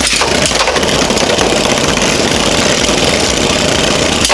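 Two Beyblade Burst spinning tops whirring and clashing in a plastic stadium: a steady, dense rattle of rapid hits and scraping.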